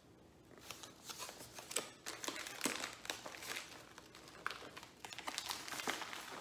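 Cardboard box and plastic packaging crinkling and rustling in faint, irregular crackles as a tightly packed gel-bead hot/cold pack is worked out of its box.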